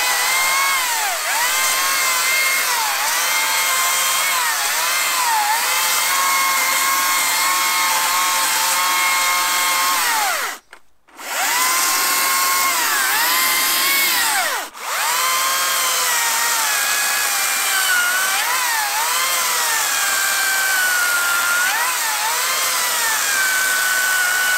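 Makita DUC306 twin-18 V brushless cordless chainsaw running, its high motor whine dipping in pitch again and again as the chain bites into branches and logs. It stops about ten seconds in, starts again, and cuts out for an instant about four seconds later.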